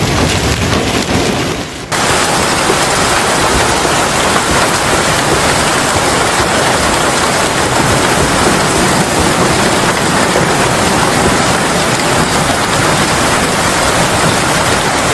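Heavy storm rain pouring down and beating on surfaces, a dense steady hiss. About two seconds in it fades briefly, then cuts to an even louder downpour.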